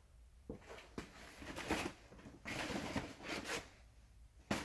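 Rustling and handling noises, like tool packaging being moved and set down, in two stretches, with a short sharp click near the end.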